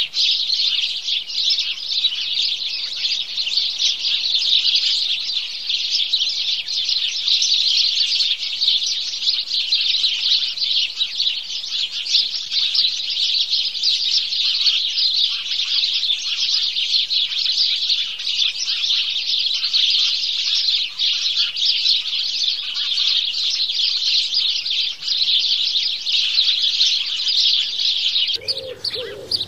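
A flock of sparrows chirping: many overlapping calls run together into a dense, unbroken chatter. About a second before the end a lower, wavering call starts.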